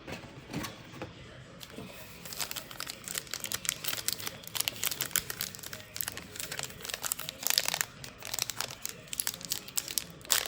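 A trading card pack wrapper crinkling and tearing as it is pulled open. A dense run of crackles starts about two seconds in.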